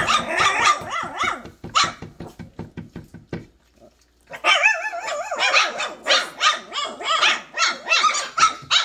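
Three-week-old Cane Corso puppies barking and growling in high-pitched yaps around a shared food pan, with a brief lull a little before halfway. The breeder takes this for the breed's inborn protective instinct.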